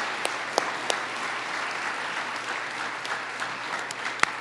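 An audience applauding in a large hall, steady clapping from many hands that thins and fades out near the end.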